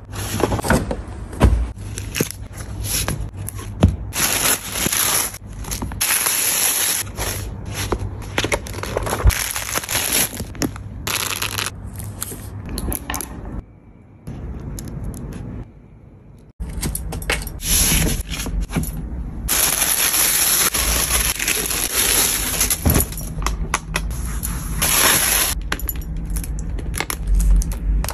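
Paper being handled in an unboxing: a paper shopping bag, box and tissue paper crinkling and rustling, with many sharp crackles and scrapes. It goes quieter for a few seconds about halfway through, then resumes.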